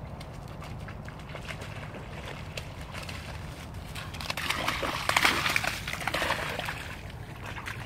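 A golden retriever puppy's paws splashing and sloshing through shallow water. Quiet at first, the splashing swells about four seconds in and carries on for a couple of seconds before easing off.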